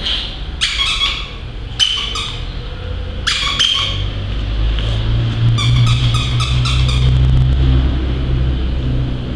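Squeaky plush dog toy being squeezed: a few separate high squeaks, then a quicker run of squeaks about halfway through, over a low steady rumble.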